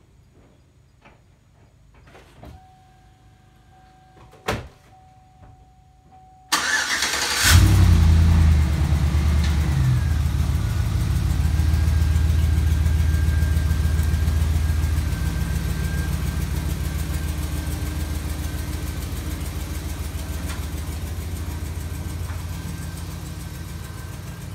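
A Chevrolet Silverado's 5.3-litre V8 is cranked and starts about six seconds in. It revs up briefly as it catches, then settles into a steady idle that slowly fades as the truck backs away. The engine has an exhaust manifold leak at a broken manifold stud, which the owner says gives a noticeable ticking on a cold start.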